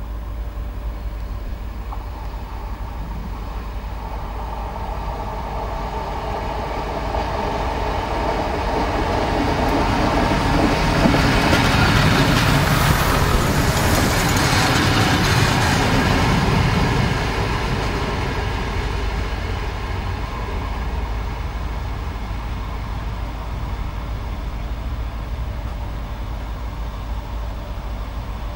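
ALn 663 diesel railcar passing at close range: its diesel engine and the wheels on the rails grow louder as it approaches, peak with a rushing rumble as it goes by, then fade back to a steady engine sound.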